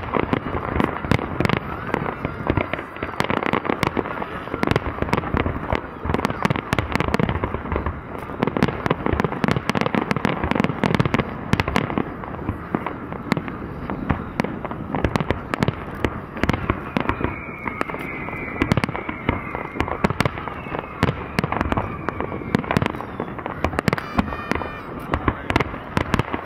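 Aerial firework shells bursting in a rapid, unbroken barrage of bangs and crackles.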